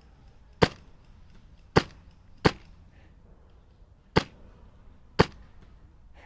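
Wolverine MTW HPA airsoft rifle set up as a DMR firing five single shots of 0.45 g BBs, each a sharp crack, spaced irregularly a second or so apart.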